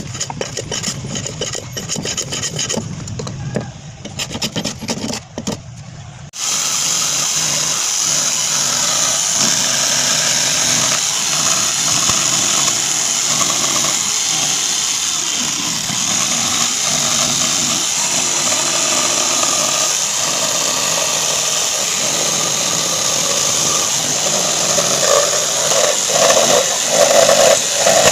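A hand plane scraping along the edge of a wooden board in a run of strokes, then about six seconds in an electric jigsaw starts abruptly and runs steadily, its reciprocating blade cutting a circular hole in a wooden board.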